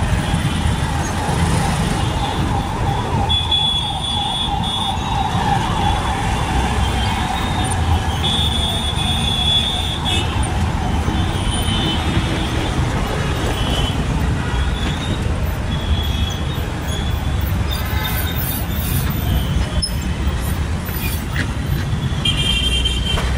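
Road traffic heard from a moving two-wheeler: steady engine rumble and road noise. A wavering whine runs through the first several seconds, and short high-pitched tones sound here and there.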